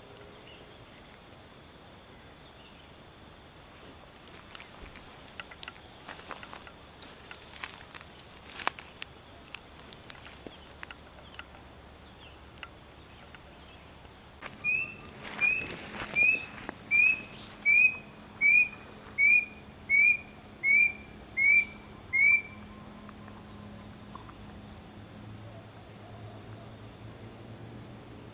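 Steady high-pitched insect drone with scattered rustles and snaps of dry grass underfoot. About halfway through, a bird calls a run of eleven short rising whistled notes, evenly spaced about three-quarters of a second apart; these are the loudest sound.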